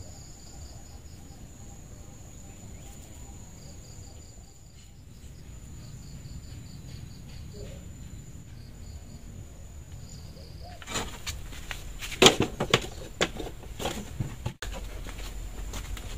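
Insects calling in a garden: a steady high-pitched whine with trains of short pulsing chirps repeating under it. About eleven seconds in, a run of sharp clicks and rustles becomes the loudest sound, then breaks off abruptly.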